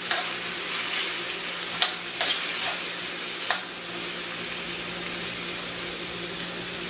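Chopped onion sizzling in hot oil in a skillet as it starts to fry. A metal spoon stirring it clinks and scrapes against the pan several times in the first few seconds, then the sizzle goes on steadily.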